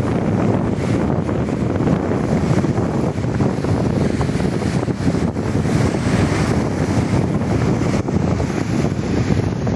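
Wind buffeting the microphone, with sea surf rushing beneath it.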